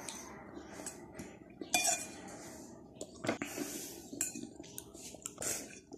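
Spoon clinking and scraping against a dish while eating, in irregular short taps and scrapes, the loudest a little under two seconds in.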